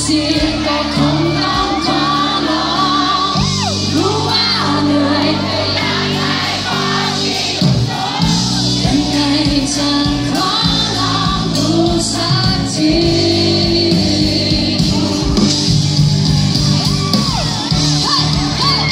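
Live band music with a singer, amplified through a concert sound system.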